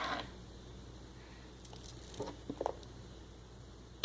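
Faint squishing of homemade slime, mixed with shaving cream, being worked in the hands, with a few soft squelches and small clicks a little past halfway.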